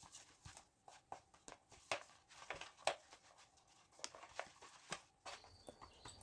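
Faint, irregular light taps and rubbing of fingers spreading olive oil over the inside of a clear plastic food container.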